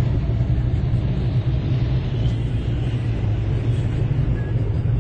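Steady low rumble of a car driving, its engine and tyre noise heard from inside the cabin.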